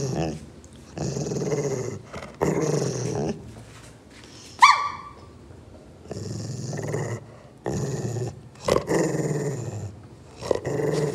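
Rottweiler growling in a series of long, low growls of about a second each, with one short, high yelp falling in pitch about four and a half seconds in.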